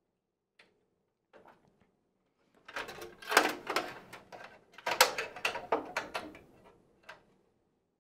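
Power cables and connectors being handled inside a workstation's metal case: two spells of quick clicks, rattles and rustling, starting a few seconds in and again about five seconds in, with one more click near the end.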